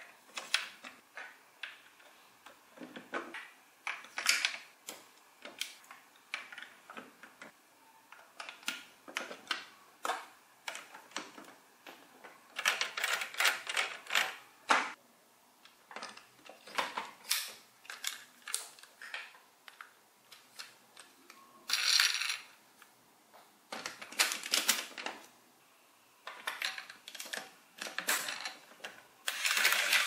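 Large plastic toy building blocks clicking and clattering as they are handled and pressed together, in irregular sharp clicks and short bursts.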